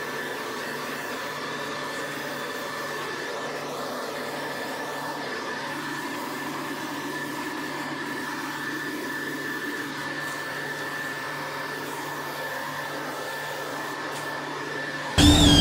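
Steady rushing air in a paint spray booth, the spray gun's air and the booth's ventilation while clear coat goes on, with a faint steady hum underneath.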